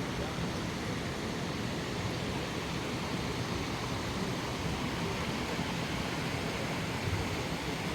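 A mountain stream's water rushing over rocks in a steady, unbroken hiss.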